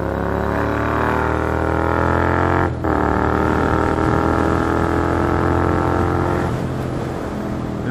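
Honda NC700 parallel-twin engine through a baffle-less Blackwidow full carbon-fibre exhaust, revving up with a deep roar. The pitch climbs for nearly three seconds, breaks off for an instant, holds high, then falls back toward idle near the end.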